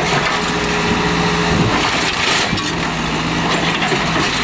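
1974 Case 580B backhoe engine running steadily under load as the backhoe pushes down on scrap to crush it. The engine note dips briefly, and there is a noisier crunch about two seconds in.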